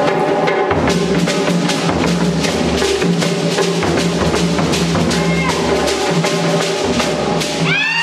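Live West African drum ensemble playing a fast, driving rhythm: djembe and dunun drums with shekere gourd rattles. Near the end, several rising whoops break out over the drums.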